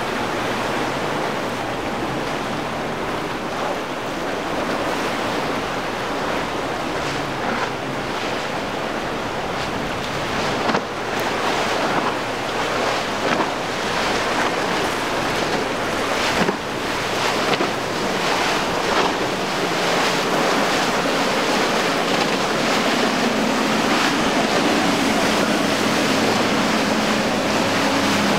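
Wind buffeting the microphone over churning waves and boat wake, with a few sudden louder splashes in the middle. Underneath, the low steady drone of a center-console boat's twin outboard engines running at speed grows stronger near the end.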